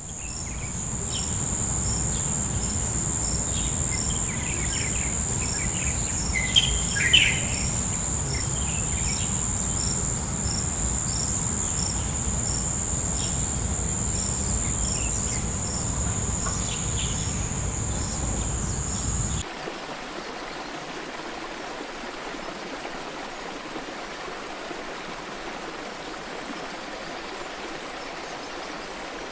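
Night ambience of crickets trilling steadily and high over a deep low hum, with a few bird chirps about seven seconds in. About two-thirds of the way through it cuts abruptly to the even rush of a stream or waterfall.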